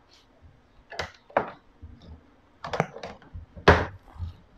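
A handful of sharp clicks and knocks from hands handling things on a workbench, the loudest near the end.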